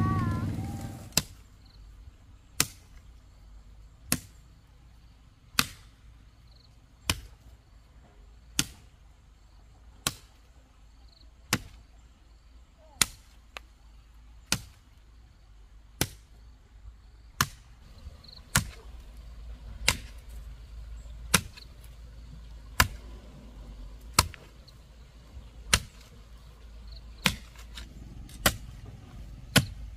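Steady, evenly spaced strikes of a hand tool, about one every second and a half, around twenty in all, like a blade chopping.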